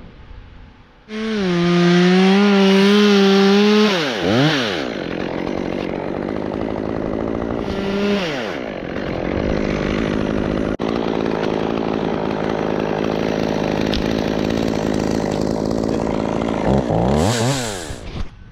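Two-stroke chainsaw revved high about a second in, dropping back after about three seconds. It revs briefly again, then runs at a steady lower pitch for several seconds, rises once more and stops just before the end.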